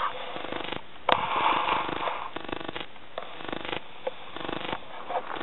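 Walking through dry scrub on a stony slope: irregular crunching of footsteps on loose rock and rustling of dry twigs, with a louder rustle about a second in.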